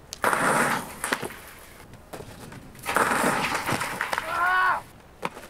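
Skis and body hitting deep powder snow: a loud rush of snow just after the start, a knock about a second in, then a second rush about three seconds in as the skier crashes and tumbles in the snow. Near the end a person gives a short yell.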